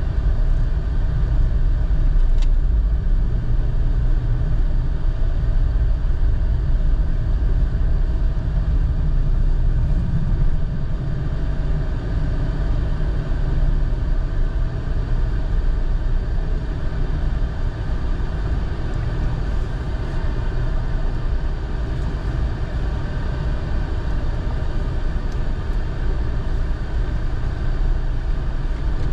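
Steady rumble of a car driving along, the engine and tyre noise heard from inside the cabin.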